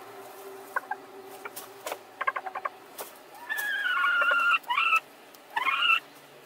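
Hens squabbling in a shared straw nest box, each trying to lay in the same spot: a quick run of short clucks about two seconds in, then a loud drawn-out squawk lasting about a second and two shorter calls, the last rising. A few faint clicks come in between.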